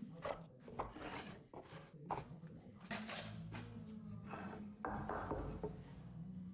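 Wooden drawer being slid in and out of a birch-ply box: light wooden knocks and wood rubbing on wood, with a longer scrape about five seconds in.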